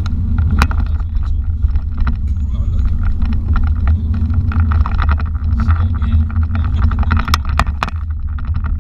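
Steady low rumble of a BMW M5 being driven, engine and road noise heard from inside the cabin. A few sharp clicks sound, one just after the start and three close together near the end.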